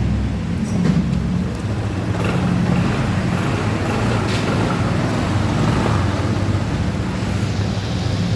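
Honda ADV 150 scooter's single-cylinder engine running steadily, having started once the loose socket was wedged firm with a cable tie.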